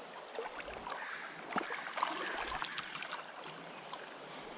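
Creek water running steadily, with a few short splashes and clicks over it.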